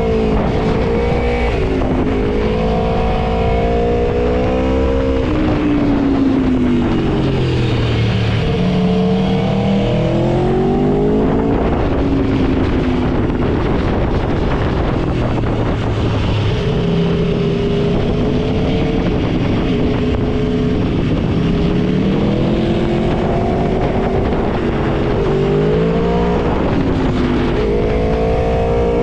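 Aprilia Tuono V4's V4 engine under way, its pitch repeatedly climbing as it accelerates and dropping as it shifts or slows, over a steady rush of wind and road noise.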